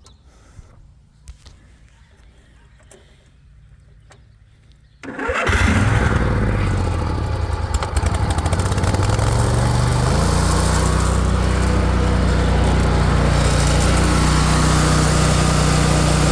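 A Swisher zero-turn mower's 27-horsepower Briggs & Stratton V-twin engine, on choke, catches abruptly about five seconds in after a few faint clicks, then runs loudly. About ten seconds in it settles into a steadier run.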